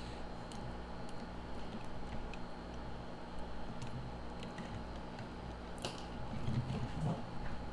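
Hands handling a bundle of printer wires and twisting twist ties around it: scattered small clicks and rustles of wire and plastic, with a sharper click about six seconds in, over a steady low hum.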